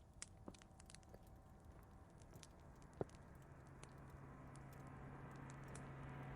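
Faint crackling fireplace, with scattered small pops and one sharper pop about three seconds in. A low steady hum and a rising hiss fade in during the second half.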